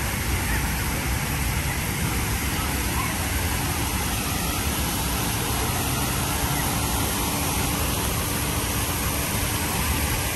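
Steady hiss of rain and water spilling down the fountain tower onto wet pavement, with a faint steady engine hum through the middle.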